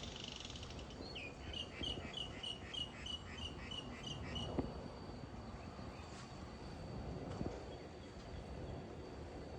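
A bird singing a run of about a dozen quick, evenly repeated chirps, about three a second, lasting some three seconds. Beneath it are a faint steady high tone and the low rumble of distant road traffic.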